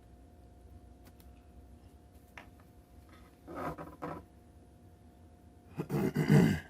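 Hands working inside an open laptop while reseating its battery cable connector: a few faint ticks, then two short bursts of handling and scraping noise, the louder one near the end.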